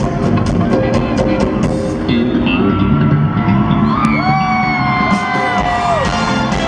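Live rock band playing in a large hall, with drum and conga hits. The hits drop out about two seconds in, leaving long held high notes that glide at their ends over the band.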